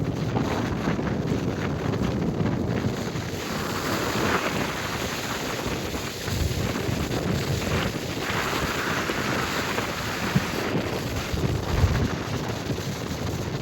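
Wind buffeting the microphone aboard a moving boat, over the steady rush of water.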